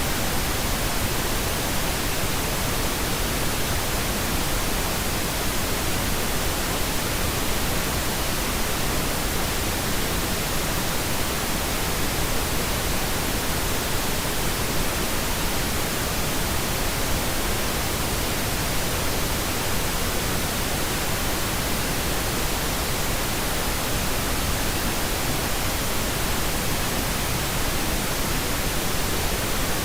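Steady white noise: an even, unbroken hiss spread from the lowest to the highest pitches, holding the same level throughout.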